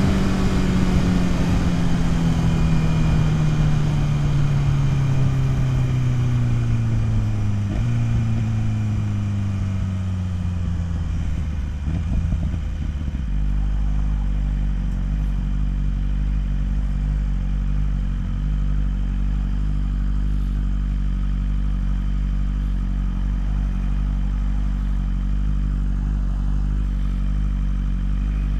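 BMW S1000RR inline-four engine slowing down: the engine speed falls steadily, jumps up once with a downshift about eight seconds in, falls again, then settles into a steady idle about thirteen seconds in.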